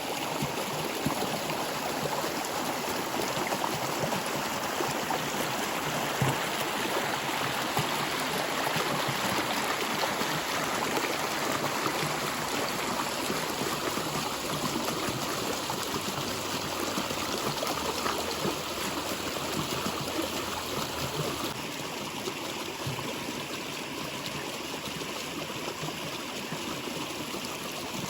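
A stream of water flowing and trickling with a steady rushing sound.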